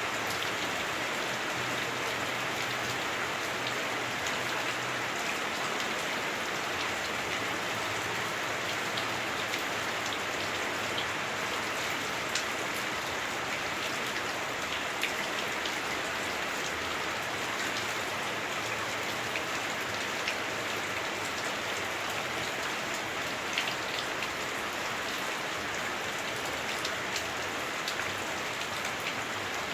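Heavy rain falling on a house roof, heard from inside the house: a steady hiss with scattered sharper drop hits.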